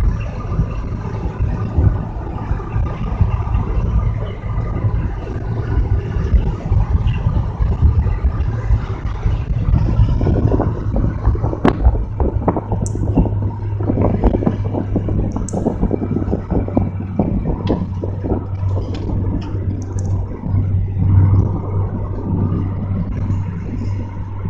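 Inside a car at motorway speed: a steady low rumble of engine and tyre road noise. From about ten seconds in, many short rustles and knocks lie over the rumble.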